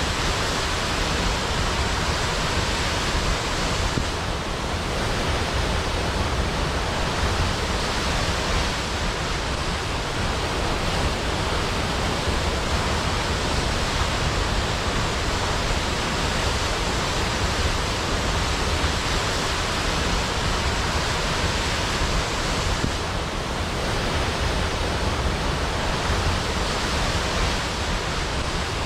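Large waterfall: a steady, dense rush of falling water with a strong deep rumble underneath.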